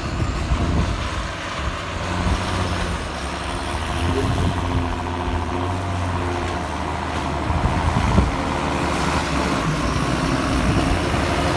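John Deere 7530 tractor's six-cylinder diesel engine working under load as it drives a buckrake full of grass silage onto the clamp. It runs steadily and grows louder as the tractor comes closer.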